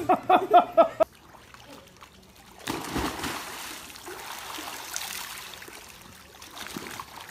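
A cat meowing in quick repeated calls, cut off abruptly about a second in; then water splashing and trickling.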